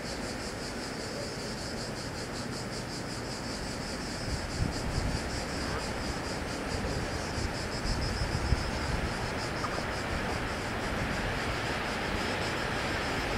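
Steady high chirring of insects with wind on the microphone, while the low rumble of an approaching electric train slowly grows louder.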